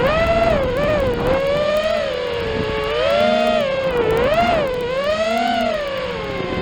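FPV quadcopter's brushless motors and propellers whining, the pitch rising and falling several times as the throttle changes.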